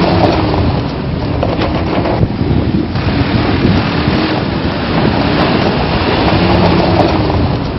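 Dongfeng Nissan double-cab pickup driving along a dirt track, its engine heard under a steady rush of wind on the microphone.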